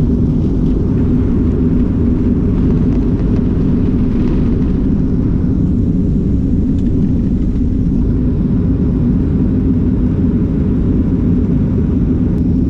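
Airliner's jet engines at takeoff power during the takeoff roll, heard from inside the cabin as a loud, steady low rumble.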